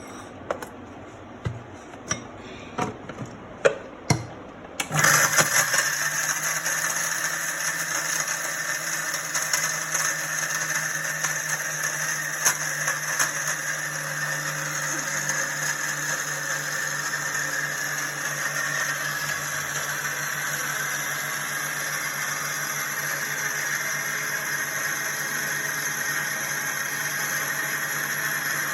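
A few sharp clicks and knocks, then about five seconds in an electric kitchen mixer grinder starts up and runs steadily, with a constant hum under a loud grinding noise, milling a dry herbal mix of whole spices such as black pepper, cloves, ajwain, fennel and liquorice root into powder.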